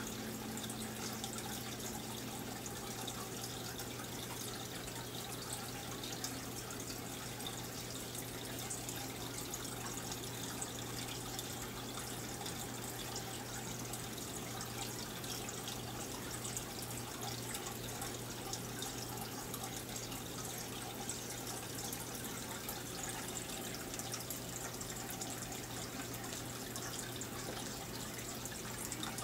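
Aquarium water running and bubbling steadily, a continuous trickle from the tank's filter and aeration, with a low steady hum underneath.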